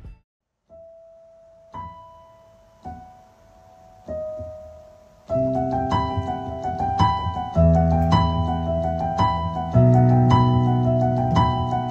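Piano music: after a brief silent gap, a few single notes ring out slowly, then about five seconds in it fills out into fuller sustained chords over a low bass, with notes struck at a steady pulse.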